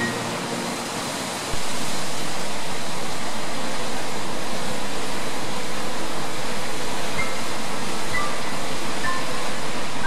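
Steady rush of falling water from a waterfall, an even hiss across all pitches that cuts in louder about one and a half seconds in.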